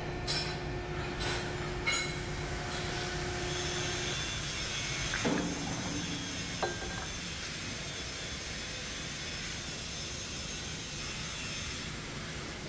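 Hydraulic press running with a steady hum, with three sharp clicks in the first two seconds as it bears down on a welded steel fillet-weld test plate. The hum stops about four seconds in. Then come two short clanks of heavy steel plate, each ringing briefly, about five and six and a half seconds in, followed by steady shop background noise.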